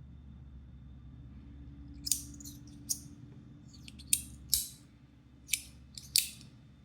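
About six sharp, short clicks at uneven intervals, from handling the Wanwu Reactive Armor Shield, a magnetic zirconium fidget slider.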